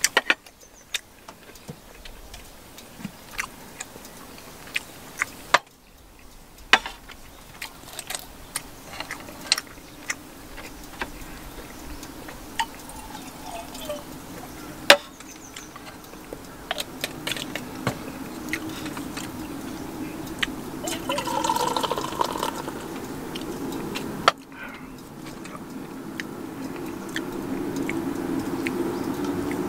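Liquid poured from a small glass bottle into a stainless steel mug, the pour's pitch rising as the mug fills. Scattered sharp clicks and taps of metal and glass.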